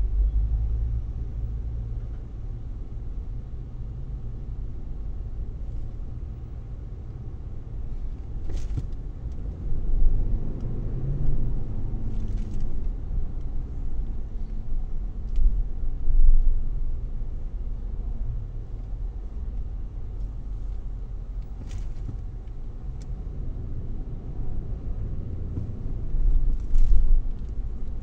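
Steady low rumble of a car's engine and tyres heard from inside the cabin, with a few faint clicks.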